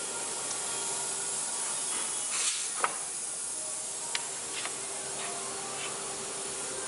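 Steady hiss of compressed air being let out of the plate mounting machine's pneumatic air shaft as its pressure is released, with a few light clicks and knocks from the plate cylinder being handled and a short louder whoosh about two and a half seconds in.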